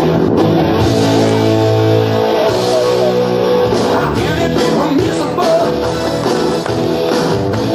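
Loud rock music with guitar and a singing voice playing for a dance number.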